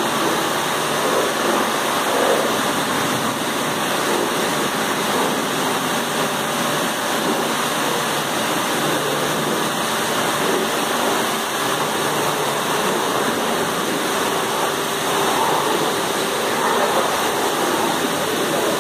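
Automatic car wash at work: water jets spraying over a car as the rotating brush gantry passes, a steady, even rush of water throughout.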